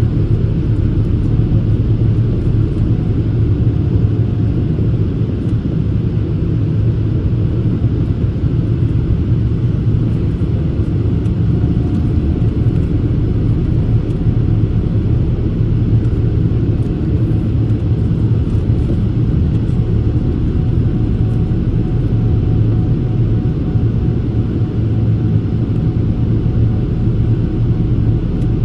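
Steady cabin noise inside a Boeing 787-8 climbing after takeoff: an even low rumble with a hiss of airflow, from the Rolls-Royce Trent 1000 engines and the slipstream, with no changes.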